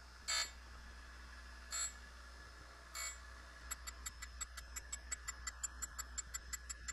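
Quiet shop background with three short hissing swishes, then a quick, even run of light sharp mechanical clicks, about five a second, from a little under four seconds in.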